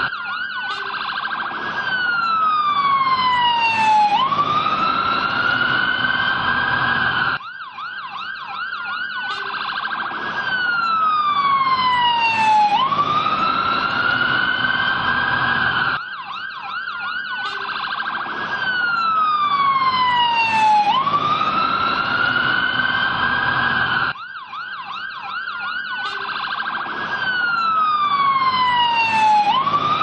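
Irish fire engine siren wailing: a tone slides down, rises back and holds. The cycle restarts abruptly about every eight seconds.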